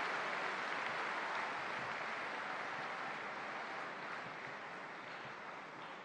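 Large audience applauding, the clapping gradually dying down.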